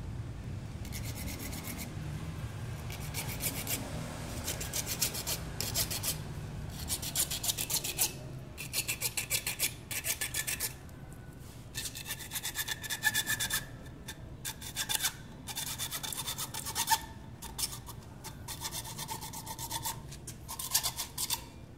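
Hacksaw cutting through PVC plastic pipe: a rasping stroke about every second, with short pauses between runs of strokes.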